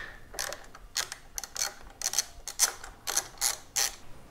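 Socket ratchet wrench clicking in a run of short, uneven strokes, about three a second, as half-inch acorn nuts are backed off a motorcycle turn-signal bracket.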